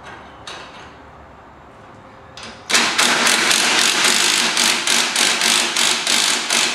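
A cordless impact driver hammers a leaf-spring mounting bolt tight on a golf cart's rear suspension. It starts sharply about two and a half seconds in and runs as a loud, steady rattle, after a few light clinks of tools being handled.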